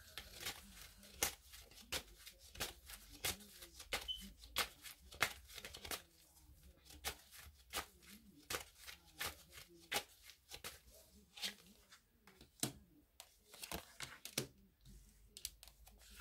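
A deck of tarot cards being shuffled by hand: a string of sharp, irregular card snaps and slaps.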